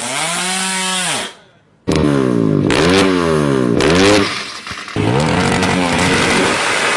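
Racing motorcycle engine revved hard, its pitch climbing and falling again and again as the throttle is blipped. The sound cuts out a little over a second in and a fresh bout of revving starts abruptly about half a second later.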